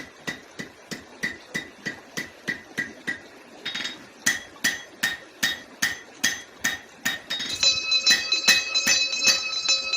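A hammer striking metal at a steady pace, about three blows a second, with a short break a little over three seconds in. From about seven and a half seconds in, a sustained metallic ringing with several pitches takes over.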